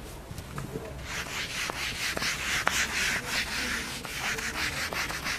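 Whiteboard eraser rubbed back and forth across a whiteboard, wiping off marker writing: a run of scratchy rubbing strokes starting about a second in.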